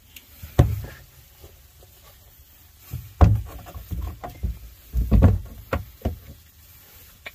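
Irregular knocks and thumps: a loud one about half a second in, then a cluster of them from about three to six seconds.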